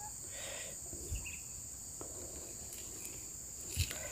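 Steady high-pitched chorus of insects, likely crickets, chirring continuously in a rural field. A soft knock comes about a second in and a louder thump near the end.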